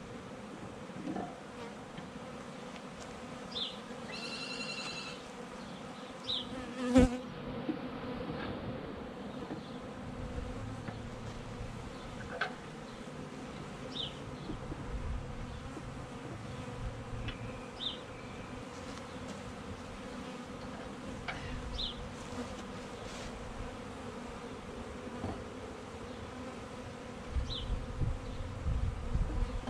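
A cloud of honeybees from a newly installed package buzzing around like crazy, a steady drone, stirred up by the hive being opened. About seven seconds in there is one sharp knock as a wooden hive frame is set back in.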